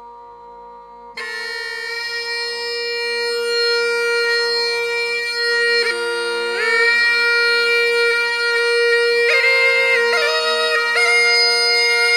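Rajasthani murli, the snake-charmer's gourd pipe with a drone, playing in raga Bhairavi: a steady drone, joined about a second in by a loud reedy melody of long held notes that step from pitch to pitch.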